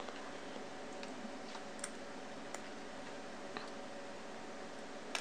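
A few faint, scattered ticks and taps from fingers handling the small parts of a limb-mounted bow clicker while threading cord through it, the sharpest near the end, over a steady faint hiss.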